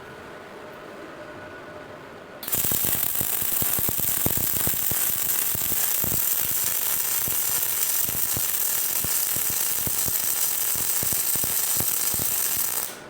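A collaborative welding robot's welding arc strikes about two and a half seconds in and burns steadily for about ten seconds with a dense hiss and irregular crackling, then cuts off abruptly near the end. Before the arc, only a faint low hum.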